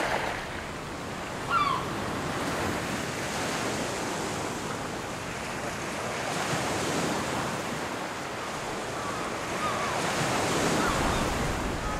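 Sea surf washing on a shore, a steady hiss that swells and ebbs slowly, with a brief high chirp about one and a half seconds in and a few fainter ones near the end.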